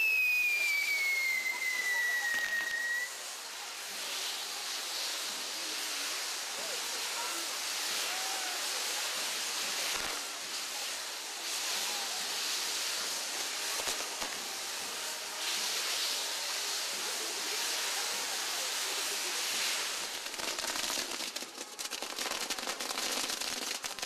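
A fireworks castillo burning with a steady dense fizzing hiss. A falling whistle sounds over the first three seconds, and crackling thickens near the end.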